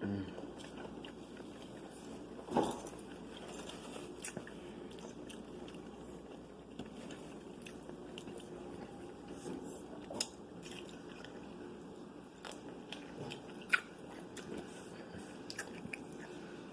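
Eating sounds: chewing and biting into fried food, with scattered crisp crunches and wet mouth clicks; a few louder crunches stand out.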